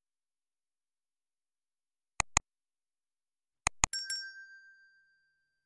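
Subscribe-button animation sound effect: two quick mouse clicks about two seconds in, two more clicks about a second and a half later, then a bell ding that rings on and fades.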